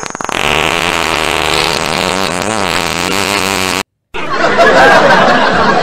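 A long, loud, buzzing fart sound effect that wavers in pitch, standing for a bout of diarrhoea. It cuts off abruptly about four seconds in. After a short break, a rougher, noisy sound follows.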